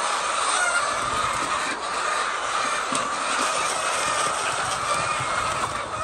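Many laying hens in a poultry house clucking and calling together, forming a loud, steady din.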